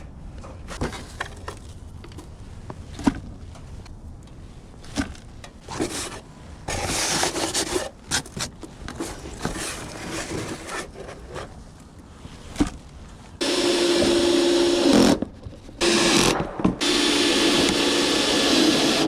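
Scattered scraping and rubbing handling noises, then a small power tool running in two steady bursts of a few seconds each, a hum under a loud hiss.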